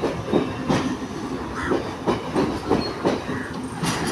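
Sri Lanka Railways Class S9 diesel multiple unit passing close beneath, its wheels clattering over the rail joints in an irregular run of sharp knocks over a steady rumble.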